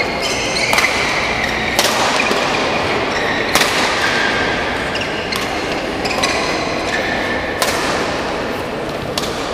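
Badminton rally: sharp smacks of rackets striking the shuttlecock, about seven in all, one every second or so, with high squeaks of players' shoes on the court.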